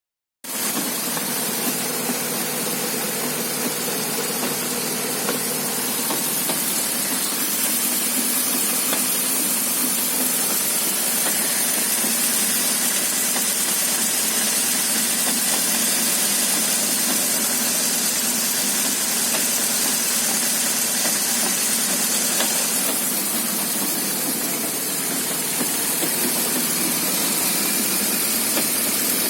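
BMW running with a steady hiss and faint, irregular knocks, which the owner presumes come from the driveshaft (propshaft).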